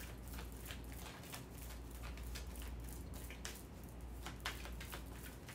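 Faint, irregular light ticks and rustles of handling, over a low steady hum.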